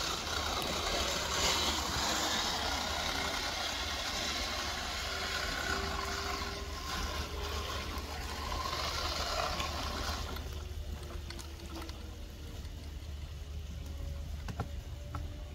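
Small electric motor and gears of a Redcat Gen 8 RC crawler whining faintly as it drives over the forest floor, the pitch sliding up and down with the throttle, under a steady hiss that drops away about ten seconds in.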